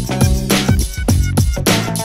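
Background music with a steady, quick beat and a strong bass line.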